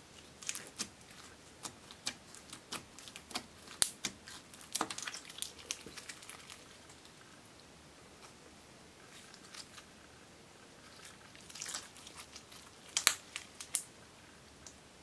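Clear slime thick with silver glitter and sequins being pressed and stretched by hand, giving sticky pops and crackles. A busy run of pops fills the first six seconds, then a lull, then another cluster about twelve to fourteen seconds in.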